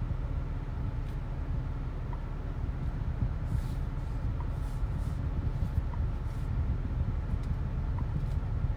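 BMW X3 M Competition with its 3.0 L twin-turbocharged six-cylinder engine driving at a steady pace: a steady low rumble of engine and road noise, with no revving.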